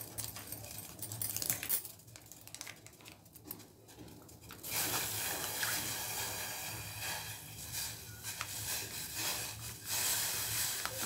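Spiced tea decoction bubbling at the boil in a steel saucepan, with a few light clicks; about five seconds in, milk starts pouring from a packet into the pan with a steady splashing hiss.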